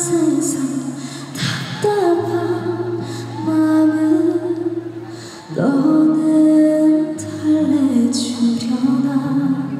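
A woman's voice singing long, held melodic notes over a backing accompaniment with steady sustained bass notes, in a live musical performance.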